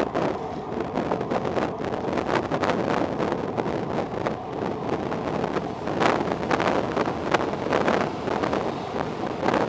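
Steady road and engine noise inside a moving car, with wind buffeting the microphone and a few brief louder rattles or bumps.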